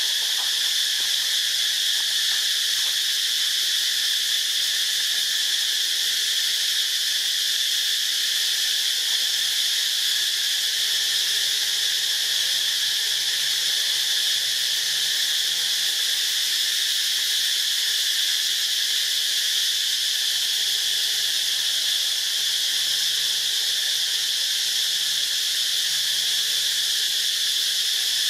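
Insect chorus in a dry forest: a steady, high-pitched shrill drone that holds an even level without pause.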